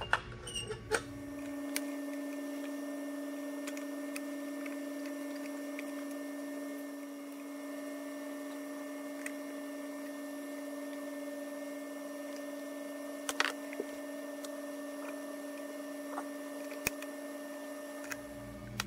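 A steady electrical hum, starting about a second in and stopping just before the end, with a few faint sharp clicks of small metal parts being handled.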